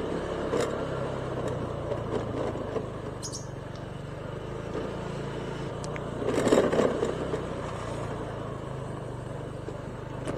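Honda scooter's engine running steadily at low riding speed, with road and wind noise, a few light clicks and clatters, and a louder burst of rumbling noise about six and a half seconds in.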